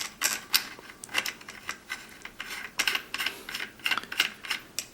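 Irregular light clicks and taps of small metal and plastic parts being handled and fitted on a MIG spool gun's front end, several per second.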